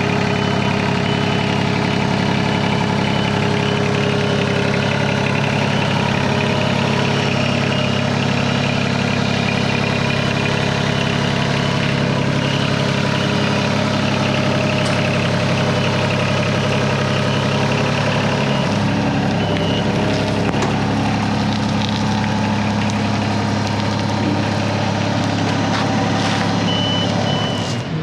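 Engine of a boatyard machine moving a hauled-out sailboat, running steadily, with a slight change in engine speed about two-thirds of the way through. A reversing beeper sounds in a run of short beeps over the first several seconds and again briefly near the end.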